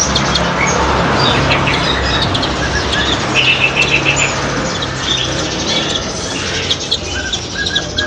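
Caged songbirds chirping in short high notes, over a steady rustle of wings flapping. The chirps are busiest about three to four seconds in.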